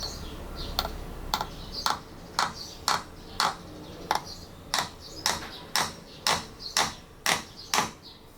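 A steady run of light, sharp clicks or taps, about two a second, evenly spaced.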